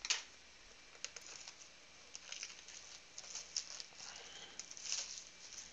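Cardboard trading-card box being handled: scattered light taps, scrapes and rustles as it is picked up, tilted and set down on a wooden table.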